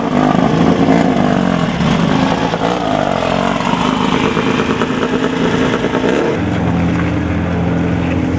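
Off-road race vehicle engines revving, their pitch rising and falling. About six seconds in, this gives way abruptly to one steady engine note.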